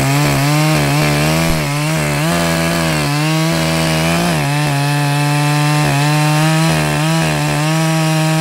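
Echo CS-620PW two-stroke chainsaw with a 27-inch bar running at high revs while cutting through a tree stump, its pitch dipping and recovering again and again as the chain bites into the wood, holding steadier in the second half.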